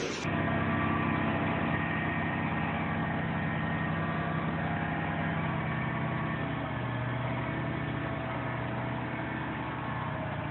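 Dump truck engine running steadily while the tipper bed is raised under a load of concrete blocks: a low drone with a few faint steady higher tones, its pitch dropping slightly about two-thirds of the way through.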